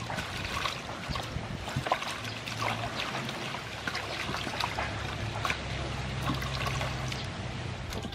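Hands swishing and rubbing vegetables in water in a large aluminium basin: steady sloshing and trickling with many small splashes and light knocks of cucumbers and limes against each other and the metal.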